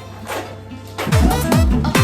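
Background music: quiet for about the first second, then a beat with deep, falling bass kicks comes in.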